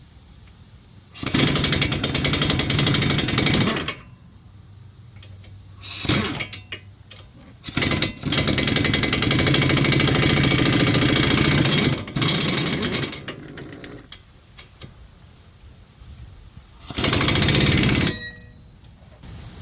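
Pneumatic impact wrench hammering on a lower control arm bolt in about five bursts, the longest about four seconds in the middle, with short pauses between them as the bolt is worked loose.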